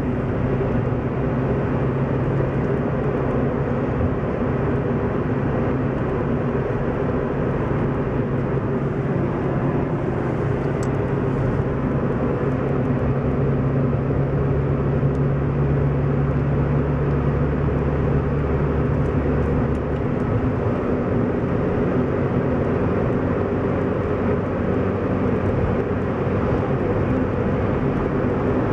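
Inside a moving car's cabin: steady engine hum and tyre and road noise while driving at a constant speed. The low engine hum grows stronger for a few seconds and then drops back about two-thirds of the way through.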